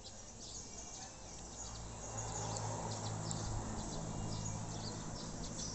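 Background ambience of small birds or insects chirping in short high calls over a steady low hum that grows louder about two seconds in.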